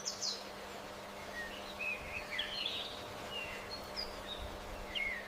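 Small birds chirping: scattered short calls and quick gliding notes over a steady background hiss, with a faint steady low hum underneath.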